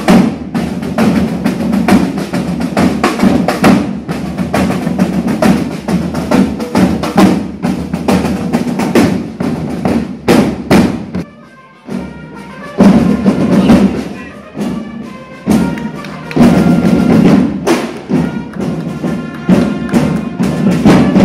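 A corps of marching field drums played with sticks, beating a fast, dense rhythm. The drumming drops away briefly about halfway through, then starts up again.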